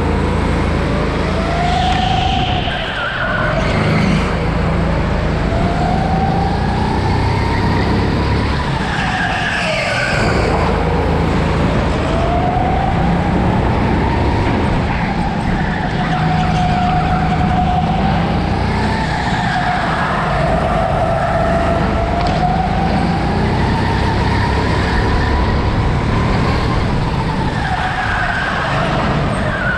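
Onboard sound of a go-kart lapping a track: its motor note rises and falls over and over as it speeds up on the straights and slows for the corners.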